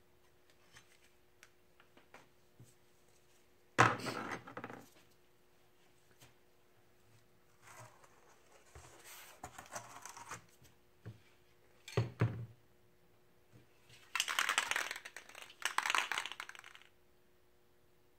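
Paper masking pieces being peeled off a spray-painted board and crumpled, in several rustling, crinkling spells. A sharp knock about four seconds in and another just after twelve seconds.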